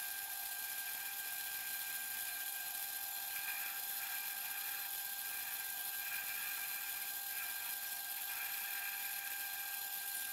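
Homemade metal lathe running, its chuck spinning a steel shaft as the cutting tool turns it down: a steady whine over a hiss.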